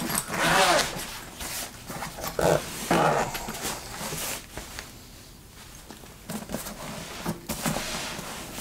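Zipper on a padded nylon Mountainsmith Hot Box Hauler bag being pulled round the lid, its buzz rising and falling in pitch with the speed of the pull in the first second. Then the nylon rustles and is handled as the lid is flipped open.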